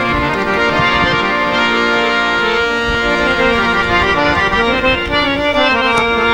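Harmonium playing a sustained reed-organ melody in an instrumental break of Punjabi dhamal music, with a hand drum beating underneath.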